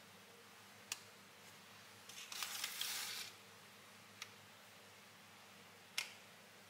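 Quiet room tone with three faint sharp clicks, about a second in, past four seconds and near the end, and a soft hiss lasting about a second near the middle.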